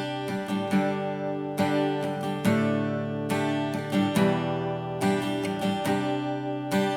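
Acoustic guitar strumming chords, a stroke about every half second with the strings ringing on between them, recorded through an AKG Lyra USB condenser microphone in its front capture mode.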